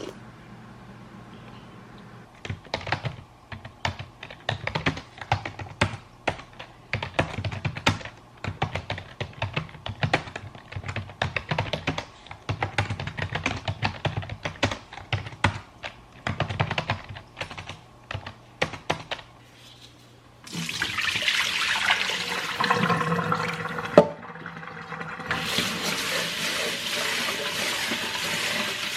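Fingers typing on a computer keyboard in an uneven run of quick key clicks. Then water starts rushing steadily, and the rush grows louder near the end. A single sharp knock sounds partway through the water.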